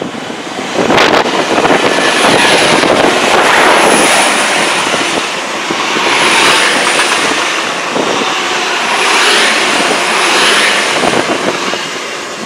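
Hitachi Class 800 Azuma bi-mode train running through a station at speed on its underfloor diesel generator units: a loud, steady rush of wheels on rail and air as the coaches pass, with a thin high whine above it. The noise comes up about a second in and eases near the end as the train draws away.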